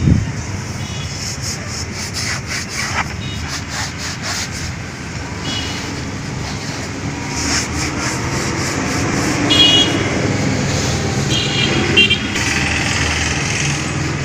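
Quick repeated rubbing, scraping strokes over a steady hum of road traffic, with short high-pitched toots near the end.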